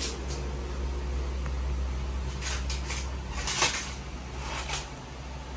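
Kitchen clatter of dishes and utensils over a steady low hum, with a cluster of sharp clinks about two and a half to three and a half seconds in, the loudest near the end of that cluster, and another clink near the end.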